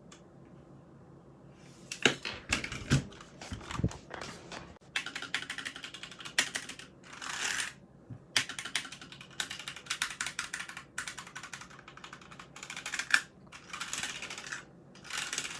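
Typing on a HyperX Alloy Origins 60 mechanical keyboard. Fast runs of key clicks start about two seconds in and come in bursts separated by short pauses.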